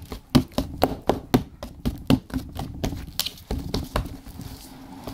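Slime being squeezed and kneaded by hand, making quick irregular pops and clicks that come thickly for about three seconds and then thin out.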